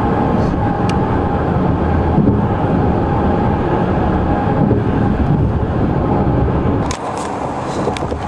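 Car travelling at freeway speed, heard from inside: steady road and engine noise, which turns quieter and thinner about seven seconds in.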